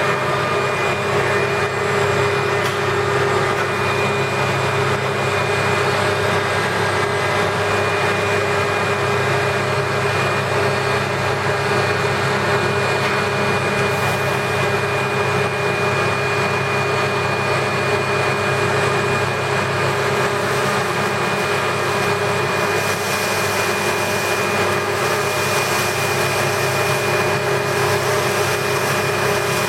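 Cocoa powder grinding machine running steadily, its motor and mill giving an even drone with a few steady whining tones; a high hiss grows slightly about two-thirds of the way through.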